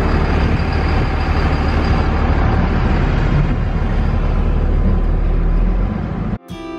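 Steady low rumble of a vehicle engine heard from inside the cab. Just before the end it cuts off abruptly and strummed acoustic guitar music begins.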